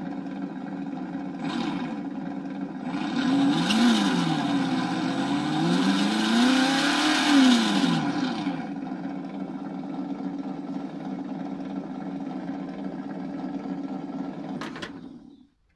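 Simulated engine sound from a Sense Innovations ESS ONE 2017 sound module in an RC crawler, played through its single small speaker: a steady idle, revved up and back down twice as the transmitter throttle is worked, then cut off suddenly near the end.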